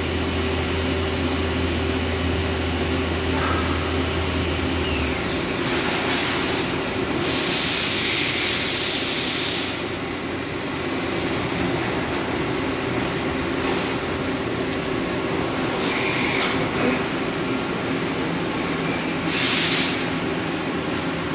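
Ganesh KSL-7612T CNC turning center running with its chuck spinning: a steady machine hum, with a low drone that stops about five seconds in. Four short bursts of hiss come and go, the longest about two seconds.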